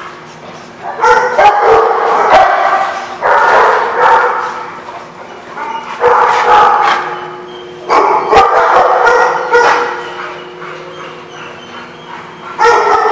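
Dogs barking and yipping in rough play, in repeated bursts of about a second each.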